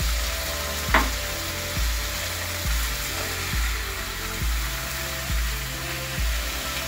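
Masala-coated fish sizzling in oil on a cast-iron dosa tava while a metal spatula scrapes and turns the pieces, with one sharp scrape about a second in. Background music with a steady beat plays underneath.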